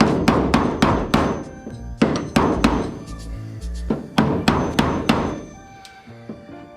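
Hammer striking a chisel in quick runs of sharp, ringing blows, about three to four a second, shearing rivet heads off the aluminum airframe of a Zenith 601XL; the blows stop near the end.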